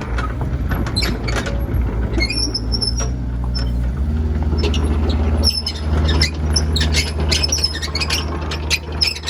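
Kubota KX161-3 excavator's diesel engine running as the machine works its hydraulics, its note shifting and getting stronger about four seconds in, with many short high squeaks and clicks from the moving machine.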